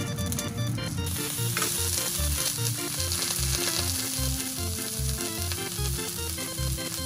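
A white croaker and Manila clams sizzling in a hot frying pan during pan-searing, the sizzle fuller from about a second in. Background music with a steady bass beat plays underneath.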